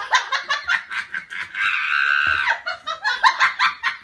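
A person laughing hard in quick breathy pulses, breaking into a long high-pitched squeal of laughter about a second long midway, then laughing on.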